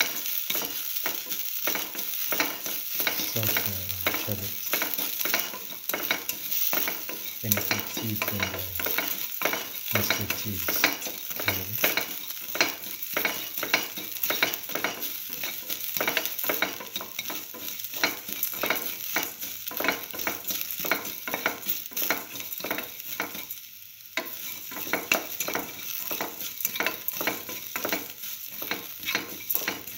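Sliced shallots with mustard and fenugreek seeds frying in hot oil in a metal pan: a steady sizzle full of quick little crackles, stirred with a spatula.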